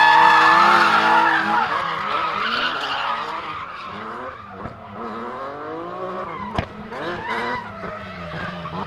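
BMW E36 drift car's engine held at high revs with the tyres squealing in a slide, then the revs rising and falling as the car drifts away and the sound fades. A single sharp crack about six and a half seconds in.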